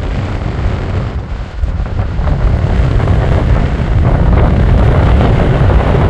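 Strong wind buffeting the microphone: a loud, gusting low rumble that grows louder about two seconds in.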